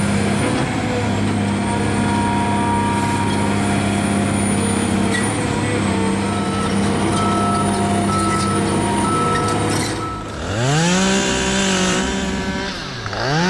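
A heavy diesel machine engine running steadily. About ten seconds in, it gives way to a chainsaw revving up to full speed, easing off briefly and revving up again near the end.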